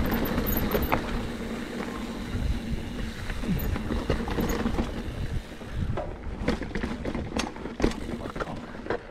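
Mountain bike riding over a rocky trail: a steady low rumble, with a faint hum in the first few seconds, then a run of sharp clatters and knocks as it rolls over rocks in the second half.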